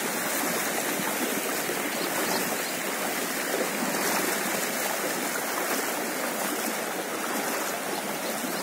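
Floodwater from an overflowing canal and paddy field rushing strongly across a road, a steady, even rush of flowing water.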